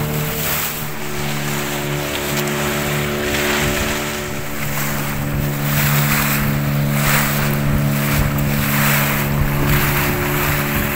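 A small open fishing boat's motor running steadily under way, with water rushing and splashing along the hull and wind on the microphone, the rush swelling and easing every second or so.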